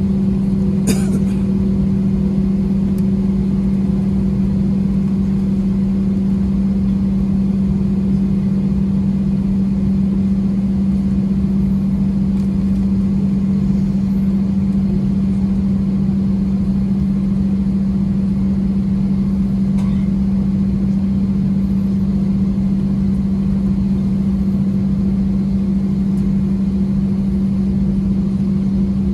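Airbus A320's IAE V2500 turbofans at taxi idle heard inside the cabin: a steady drone with a strong low hum and rumble. A brief click about a second in.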